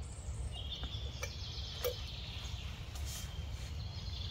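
Woodland ambience: a bird singing in a high, continuous chirping trill over a low steady rumble, with a couple of light clicks about one and two seconds in.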